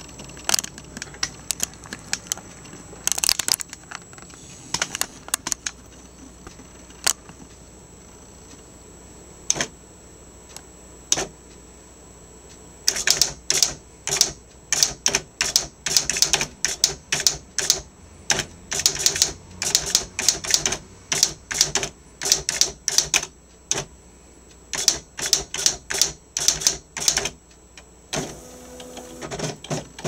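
Sharp PA-3000 II electronic daisy-wheel typewriter printing a line of text. A few scattered single clicks come first, then a fast run of sharp clacks as each character is struck. A short motor whir follows near the end.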